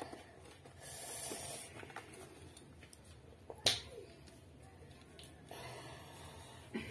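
Quiet handling of a chicken being slaughtered on a boti blade: faint rustling, with a single sharp click about three and a half seconds in, and feathers rustling near the end as its wings flap.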